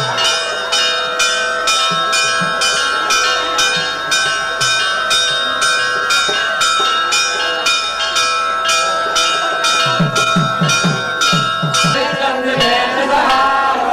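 Temple bell rung in quick, regular strikes, about two to three a second, its ringing tones sustained between strokes. The ringing stops about twelve seconds in, and voices follow.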